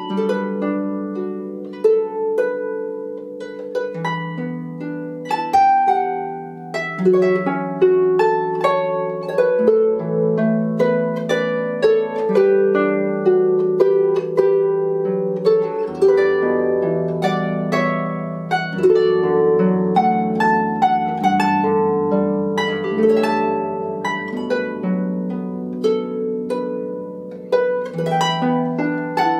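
Clàrsach (Gaelic lever harp) played solo: a plucked melody in the upper strings over ringing bass notes and chords that change every few seconds.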